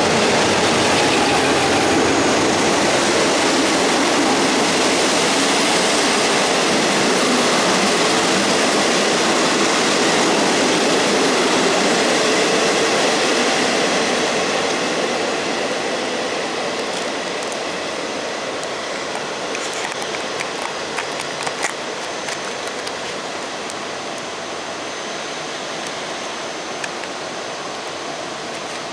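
Diesel-hauled passenger train rolling past along a station platform: a loud rushing rumble of locomotive and coaches that fades steadily after the halfway point as the train moves away. Scattered sharp clicks from the wheels and rails come in the second half.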